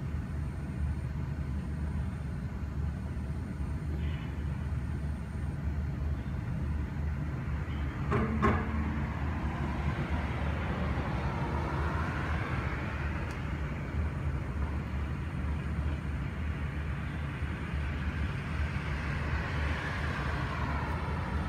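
Steady low background rumble, with a short knock about eight seconds in and two slow swells that rise and fade away, one midway and one near the end.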